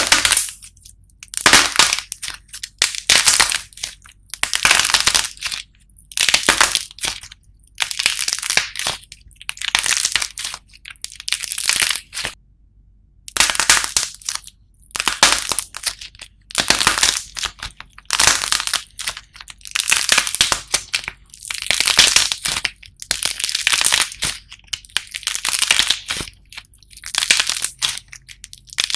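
Hard, glossy painted shell of clay figures cracking and crunching as hands squeeze and crumble them, in repeated crackling bursts of about a second with short pauses between.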